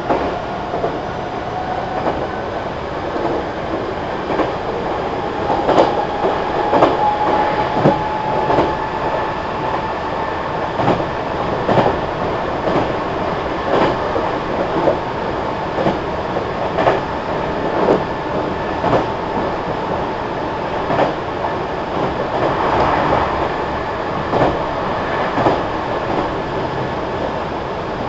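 Meitetsu 3300 series electric train running, its wheels clicking over rail joints about once a second over a steady rumble. A faint whine rises slightly in pitch over the first eight seconds or so, then fades.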